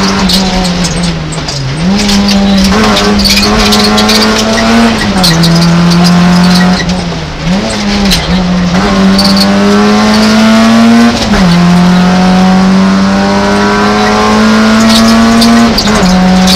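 Peugeot 106 rally car engine driven hard, heard from inside the cabin. The revs climb steadily in each gear and drop sharply at several gear changes, with brief lifts off the throttle in between.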